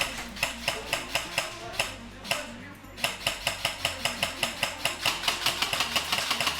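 Airsoft electric rifle (AEG) firing on full auto, a fast even stream of sharp cracks that stops briefly about two and a half seconds in and then carries on.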